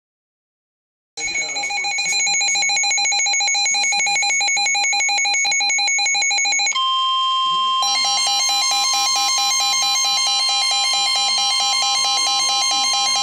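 Weather-radio tornado-warning alert signal: a rapid electronic beeping alarm starts about a second in, and about seven seconds in a steady high warning tone comes in and sounds on together with the beeping.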